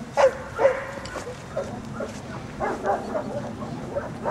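Dog barking: two loud barks in quick succession near the start, then a few quieter barks about three seconds in.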